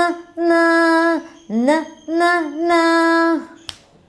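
Woman and children singing the N line of a phonics song in long held notes, ending on the sound 'na'. A single sharp click follows near the end.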